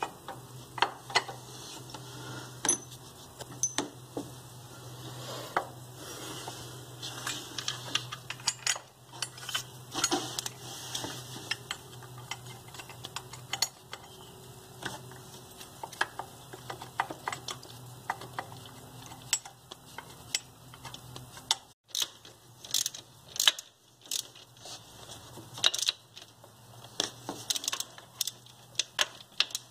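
Irregular metallic clinks and clicks of hand tools and bolts as an alternator is bolted back onto its engine-mounted bracket. A steady low hum sits behind them and drops out about two-thirds of the way through.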